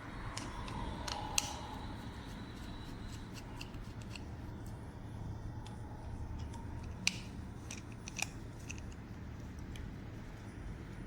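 Light, sharp clicks and ticks of small parts of a titanium folding knife being handled during disassembly. There are a few separate clicks, the clearest about a second and a half in and twice near the seven- and eight-second marks, over a faint steady low hum.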